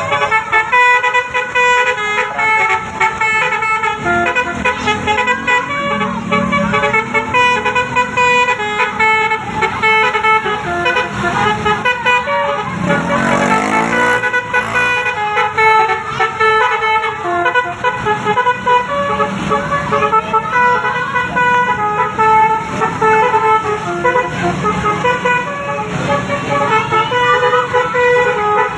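Multi-tone 'telolet' bus horn of the basuri type playing short melodic phrases over and over, its notes stepping quickly from one pitch to the next. About 13 seconds in, a louder sweeping tone rises and falls briefly.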